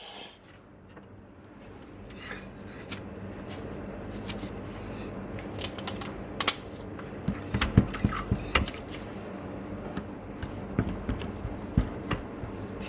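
Scattered light clicks and taps of small hard objects being handled on a workbench, more frequent in the second half, over a low steady hum.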